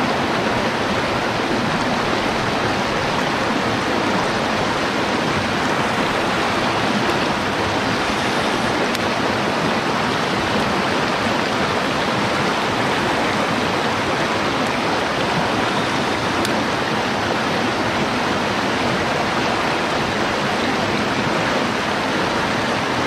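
Mountain stream water rushing steadily over rocks, an even, unbroken rush.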